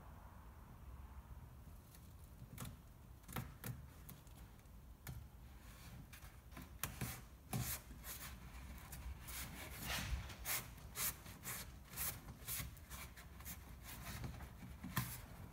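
Hands pressing and rubbing a foam pillar into a plastic kayak's cockpit: faint scrapes, rubs and small clicks of foam and skin on plastic, coming more often in the second half, over a low steady hum.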